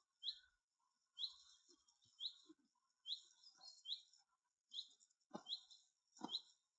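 A small bird calling over and over, one short rising chirp about every second. A dull knock comes with two of the later calls.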